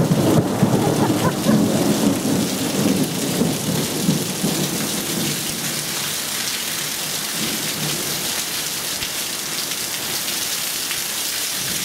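Heavy downpour hissing steadily on a screened patio enclosure, with water pouring off the screen roof. A low rumble of thunder sounds over the first four seconds or so and then dies away, leaving the steady rain.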